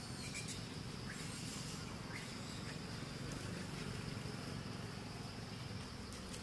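Outdoor ambience: a steady, high insect drone over a low, continuous rumble, with a few faint short chirps in the first couple of seconds.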